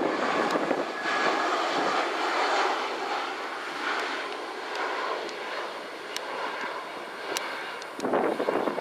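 Airbus A320-211's CFM56 jet engines on final approach with the landing gear down, a steady rushing drone that gradually fades as the airliner passes. A gust of wind hits the microphone near the end.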